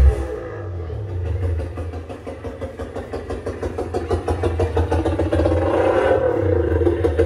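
Low, buzzing bass rumble from 18-inch subwoofer cabinets under test, growing steadily louder from about two seconds in.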